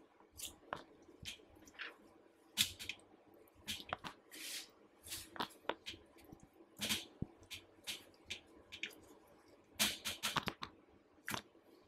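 Wet squelches and slaps of buttermilk-coated raw chicken pieces being lifted off a wire rack and dropped into a glass bowl, in irregular short bursts.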